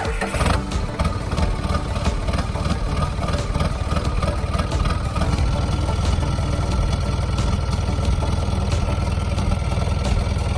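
1992 Mitsubishi Jeep J53's diesel engine idling steadily, heard through its exhaust.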